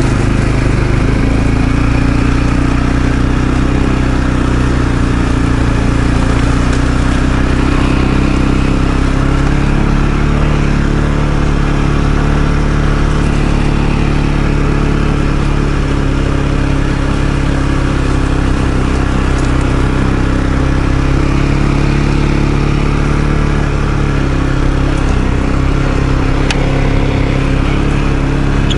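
ATV engine running steadily as the quad is ridden, its pitch rising and falling slightly with the throttle.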